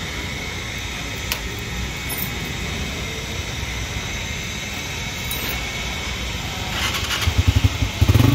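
Street traffic: a steady hum of engines, with a single sharp click about a second in. Near the end a motorcycle engine pulses close by, growing louder.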